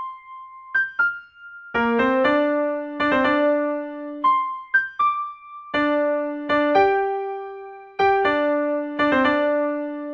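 Solo piano playing a slow melody. It opens with a few single high notes, then from about two seconds in both hands play together, the melody over lower bass notes.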